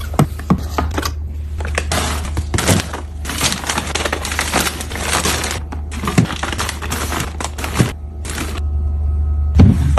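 Packaging rustling and crinkling in bursts, with short clicks and knocks of items being handled and set down, over a steady low hum.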